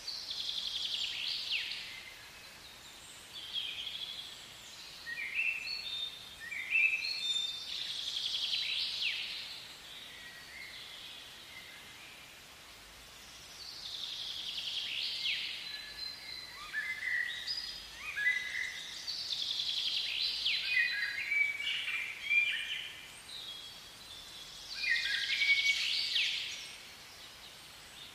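Songbirds calling in the trees: bouts of quick, high chirps that sweep downward, repeating every few seconds with short quiet gaps between.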